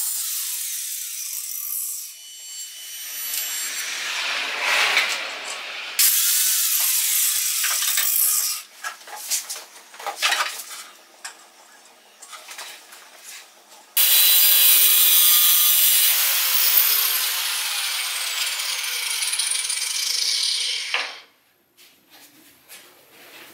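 Bauer angle grinder with a cut-off disc cutting through a steel nut clamped in a bench vise: a loud, high grinding that comes in several runs with short pauses between, the longest run in the second half. The grinding stops about 21 seconds in, leaving a few light clicks.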